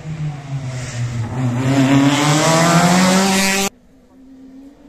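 Rally car engine at full throttle, growing louder as it approaches, its pitch dipping once at a gear change about a second in and then climbing steadily. It cuts off suddenly about three-quarters of the way through, leaving only a fainter, steady engine note.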